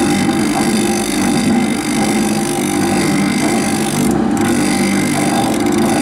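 Electric motor of a grinding-wheel cutter sharpener running at a steady hum with a constant hiss, the wheel not yet grinding.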